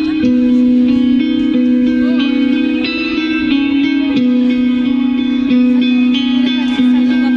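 Amplified electric guitar playing a slow line of sustained single notes, each held about half a second to a second and a half before moving to the next, with no drums.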